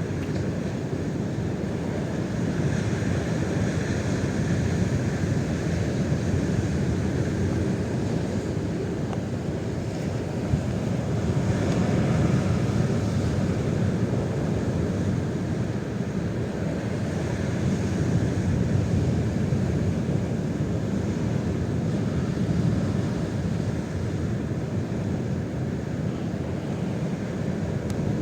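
Strong wind buffeting the microphone: a steady rushing noise that swells and eases every few seconds, with no motor tone to be heard.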